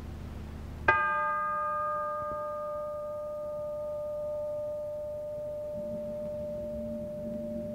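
Film score: a low hum cuts off as a single bell-like metal note is struck about a second in. The note rings on for several seconds, its higher overtones dying away first, and a low sustained tone enters near the end.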